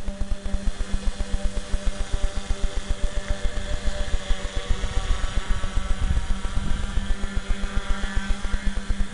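Three-rotor tricopter's electric motors and propellers buzzing as it flies overhead, the pitch shifting up and down with throttle, over a fast, low, regular fluttering throughout.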